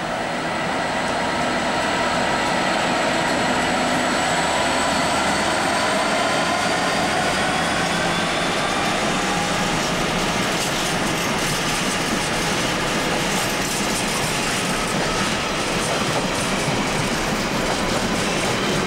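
Freightliner Class 66 diesel locomotive, with its EMD two-stroke V12 engine, passing with a container freight train; its engine and running tones slowly fall in pitch as it goes by. From about halfway through, the container wagons roll past with a steady rattle of wheels on the rails.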